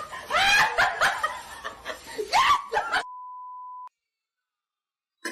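A person laughing in short bursts for about three seconds, then a steady electronic beep for about a second, cut off into dead silence.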